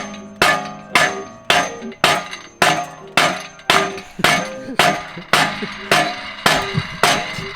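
Hammer blows on metal, struck steadily about twice a second, each hit ringing briefly.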